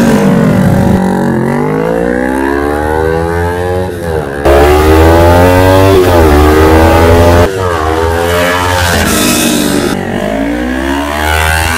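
Kawasaki Ninja 400 parallel-twin engine through an aftermarket stainless full exhaust system, revving and accelerating hard. The pitch climbs in several long sweeps and falls between them, as on gear changes, and the sound jumps abruptly about four and a half and seven and a half seconds in.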